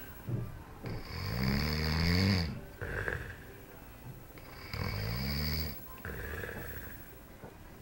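A person snoring: two long, loud snores, about a second in and about four and a half seconds in, each followed by a softer, breathy out-breath.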